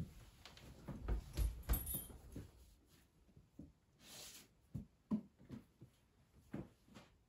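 Soft thumps, scuffs and claw clicks of an Airedale terrier scrambling up onto a wooden, cushioned window seat, along with a person sitting down beside it, bunched in the first two seconds. Then a short hiss about four seconds in and a handful of separate light knocks as the dog shifts on the seat and a book is handled.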